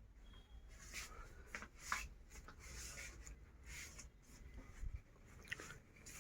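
Faint, scattered rustling and scraping handling noise, with a few brief soft clicks.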